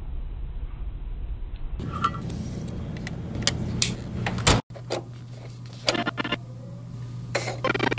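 Irregular clicks and clatter of hands handling electronic hardware, over a steady low electrical hum; the sound cuts out abruptly for an instant a little past halfway.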